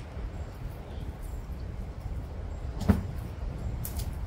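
Aldabra tortoises feeding on cut grass, with one sharp knock about three seconds in and a crisp snap near the end, over a low, steady rumble.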